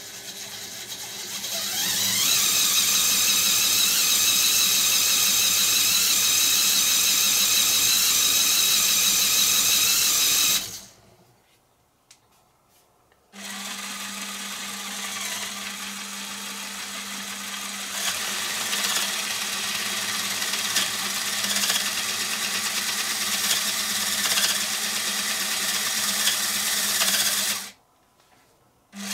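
A small LEGO Technic electric motor spins a propeller through plastic gears, speeding up over about two seconds into a steady high whine and then stopping. After a short silence, a LEGO motor drives a gear train and linkage that flaps two beams like bird wings: a steady gear whir with light plastic clicking, which stops near the end.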